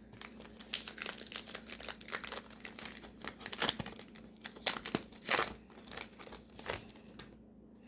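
Foil trading-card pack wrapper being torn open and crinkled: a rapid, irregular run of crackles that dies away shortly before the end.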